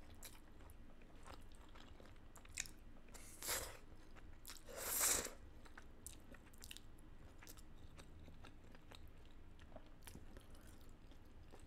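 Faint close-miked chewing of saucy food eaten by hand, a scatter of small mouth clicks, with two louder bites or smacks about three and a half and five seconds in.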